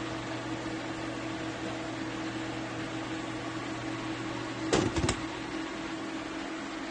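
COOKTRON portable induction hob running with a steady electrical hum from its cooling fan and coil, several level tones at once. A quick cluster of knocks comes about five seconds in, and the lowest part of the hum drops away with it.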